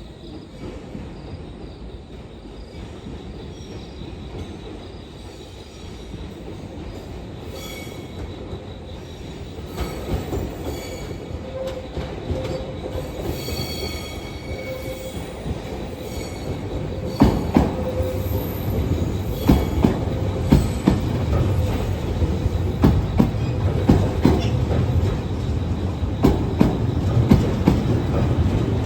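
Passenger train pulling into a station, growing steadily louder as it approaches, with high-pitched wheel squeal in the middle. In the second half the wheels clack over rail joints, several sharp clacks a few seconds apart over the running noise.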